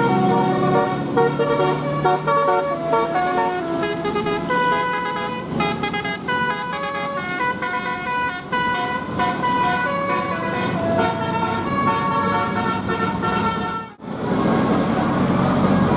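Telolet bus horn, a Basuri-style multi-tone horn, playing a quick tune of stepped notes. About fourteen seconds in it breaks off abruptly and gives way to engine and traffic noise.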